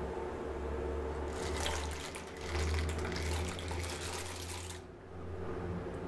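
Water at a rolling boil bubbling in a wide pan. From about a second in until nearly five seconds in, dry macaroni pours into it, making a dense crackling splash, then it settles back to a steadier boil.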